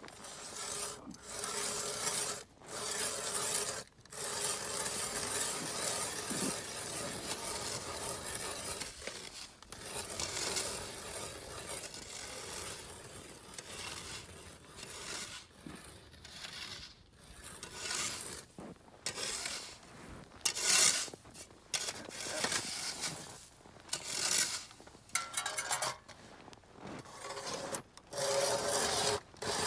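Hand-cranked ice auger boring through ice: a continuous rasping scrape of the cutting blades, broken by several short pauses between turns.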